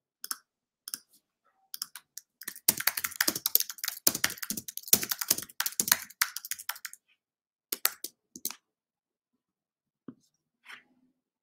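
Typing and clicking on a computer keyboard: a few scattered keystrokes, then a quick dense run for about four seconds, then a few more clicks.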